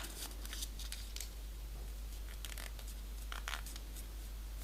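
Faint rustling and crackling of a small sheet of paper being folded in half and creased by hand, with a few sharper crackles about three and a half seconds in.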